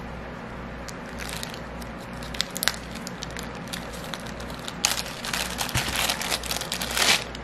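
Crinkling and crackling of a thin clear plastic resealable bag being handled and pulled open, with a few sharp crackles early and denser crinkling in the last couple of seconds.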